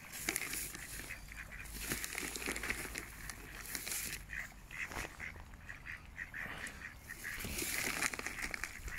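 A flock of mallard ducks quacking, with many short calls overlapping in quick succession.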